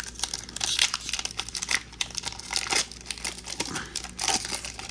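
Foil booster pack wrapper crinkling and tearing as it is handled and ripped open, a dense run of irregular crackles.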